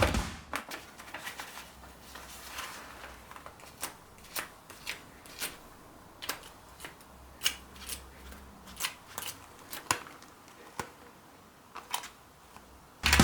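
Irregular light clicks and rustling from small hard objects being handled, a few sharp ticks a second with quieter gaps.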